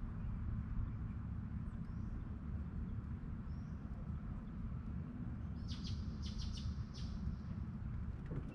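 A bird chirping: a quick run of short, high notes a little past the middle, with a couple of fainter single calls earlier, over a steady low rumble.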